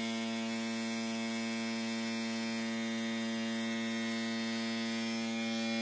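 Steady electric hum of the air compressor feeding an airbrush during spray painting, with a faint hiss of spray above it; it cuts off suddenly at the end.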